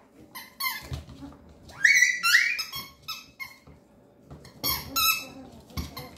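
Papillon puppies play-fighting: short high-pitched yips and yelps in quick clusters, one sharply rising yelp about two seconds in and another burst of yips about a second before the end, with a few soft knocks as they tumble.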